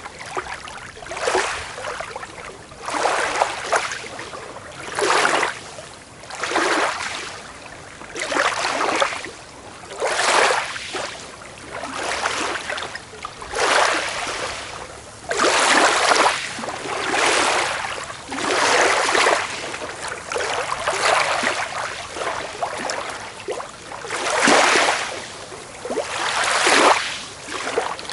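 Small waves washing onto a beach, one rushing wash every second or two, each swelling and fading.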